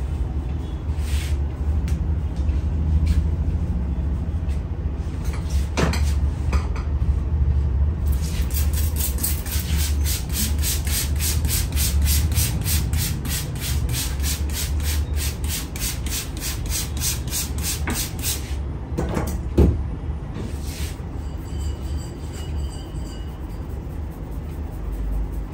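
Hands rubbing over hair and skin during a head massage, with a run of quick, regular strokes, about three or four a second, through the middle. A few sharp clicks fall among them, the loudest one late on.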